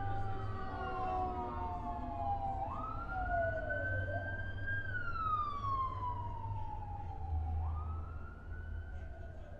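Emergency vehicle siren wailing, its pitch gliding slowly down and then sweeping quickly back up, about twice, over a low steady rumble.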